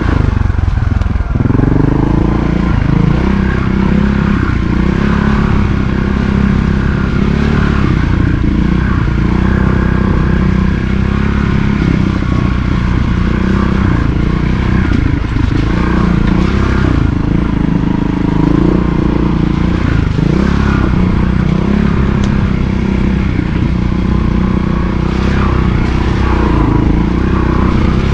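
Montesa Cota 4RT trials motorcycle's four-stroke single-cylinder engine running while being ridden, its pitch rising and falling every second or two as the throttle is opened and closed.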